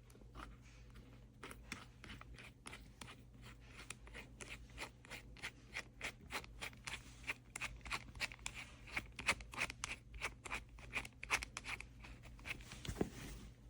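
Hands handling small hard parts of a cordless drill kit: a rapid, uneven run of small clicks and rattles that grows denser in the middle, with a duller knock near the end.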